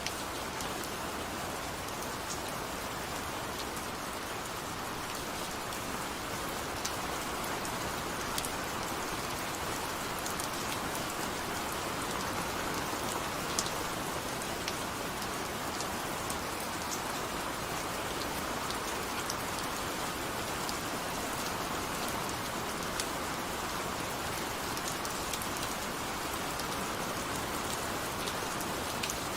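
Steady rain falling, with scattered individual drops ticking sharply on a surface.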